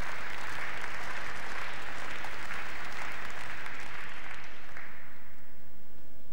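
Tennis crowd applauding after a point, the clapping dying away about five seconds in.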